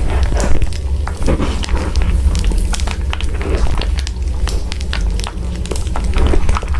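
Dense, irregular crackling and popping over a steady deep rumble, with no speech or music.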